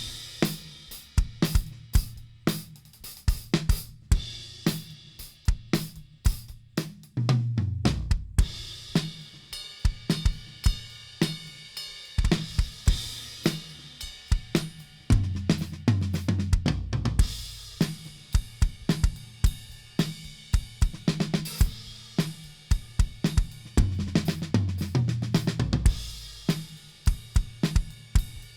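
1972 Ludwig Vistalite acrylic drum kit, still on its old Attack drumheads, played in a steady groove of bass drum, snare, hi-hat and cymbals. Tom fills step down the kit from high to low toms about a quarter of the way in, midway and near the end.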